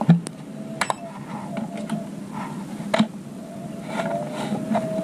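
Knocks and clicks of a portable fan's plastic base and telescopic pole being handled and adjusted. The strongest come just after the start and about three seconds in, over a faint steady whine.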